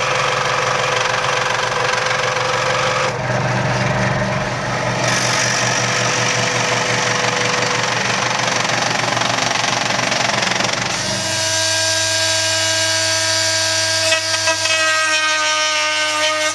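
Draper scroll saw running, its reciprocating blade chattering rapidly as it cuts an acrylic case panel. About eleven seconds in this gives way to the steady whine of a small power tool smoothing the rough edges of the cut acrylic.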